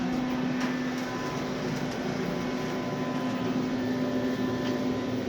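Otis hydraulic elevator running, heard inside the cab: a steady mechanical hum with a held low tone as the car travels.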